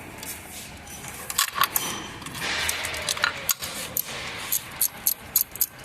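Light metallic clinks and rattles of hand tools and small engine parts being handled, a string of sharp ticks that comes quicker in the second half.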